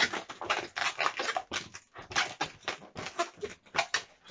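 Red latex modelling balloons squeaking and rubbing against each other as they are twisted. The short, irregular squeaks come several times a second.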